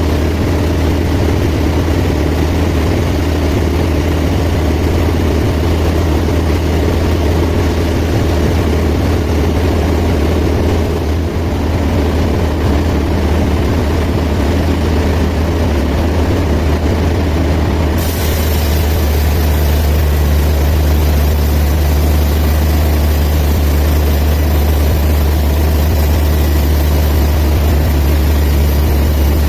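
Band sawmill running steadily with a deep, constant machine hum. About two-thirds of the way through, a high hiss and a second hum join it.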